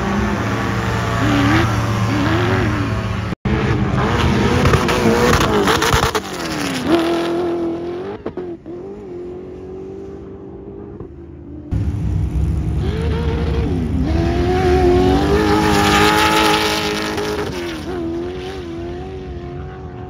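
Sand rail drag cars running at full throttle down a sand drag strip, the engine note climbing in pitch and dropping back at each gear change. It comes as several short runs joined with abrupt cuts, one about three seconds in and another near twelve seconds.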